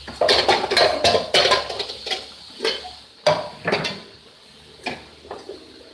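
Stainless steel pots and pans clattering and clinking as they are stacked and shifted on a kitchen cupboard shelf: a busy run of knocks in the first second and a half, a sharp clank a little past three seconds in, then scattered lighter knocks.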